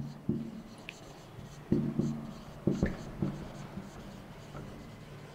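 Marker pen writing on a whiteboard: a few short strokes, with brief squeaks and soft knocks of the pen against the board.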